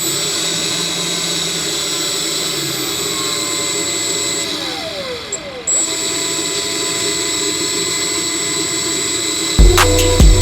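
Small high-speed 'turbo jet' blower motor of a homemade air conditioner running with a steady high whine. About halfway through the level dips briefly and the pitch sags before it steadies again.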